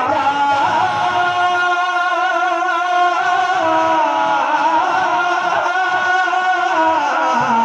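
A man singing a naat, holding long drawn-out melodic notes with a wavering vibrato.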